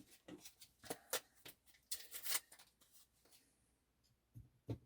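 Faint scattered clicks and light taps of small metal folding-knife parts and pivot bearings being handled, with a short patch of rustling about two seconds in and two sharper clicks near the end.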